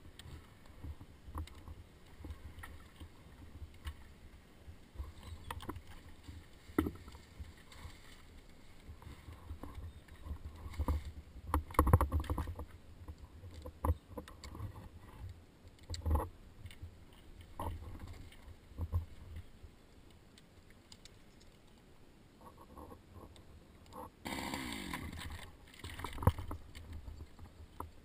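Wind rumbling unevenly on a helmet-mounted microphone, with scattered knocks, rustles and handling noise from a tree climber moving about; a brief louder scrape with a falling tone comes near the end. No chainsaw is running.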